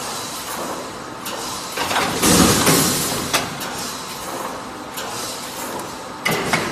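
Automatic wire mesh panel welding machine (BRC/reinforcing mesh type) running through its cycle: steady mechanical noise with sharp clicks, and a loud hissing surge about two seconds in.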